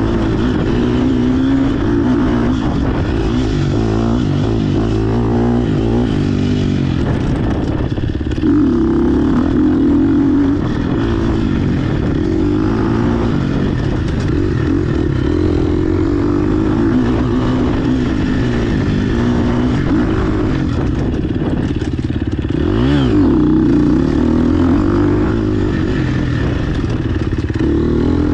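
GasGas EX 250F single-cylinder four-stroke dirt bike engine under hard riding, its pitch rising and falling constantly with the throttle. Late on, a quick sharp rev rises and drops.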